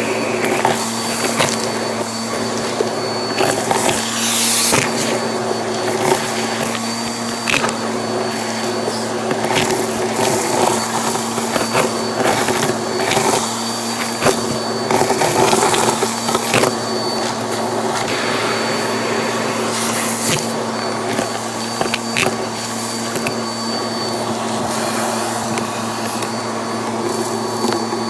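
Vacuum cleaner running steadily with its crevice nozzle held to a bagless dust cup, sucking out the collected debris, which rattles and clicks sharply through the nozzle.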